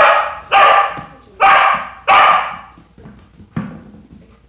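Border collie barking: four loud barks about half a second to a second apart, then a weaker one near the end, each echoing off the walls of a large bare shed.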